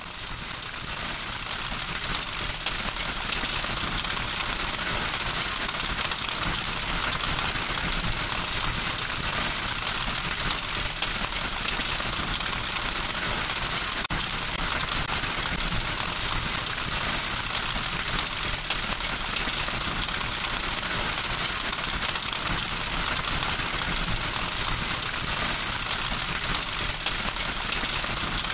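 Hail pelting down on hard ground in a dense, steady patter, fading in over the first couple of seconds.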